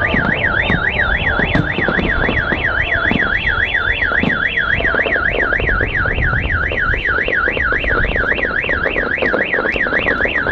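Car alarm siren warbling rapidly up and down, about three sweeps a second, with a few sharp pops behind it.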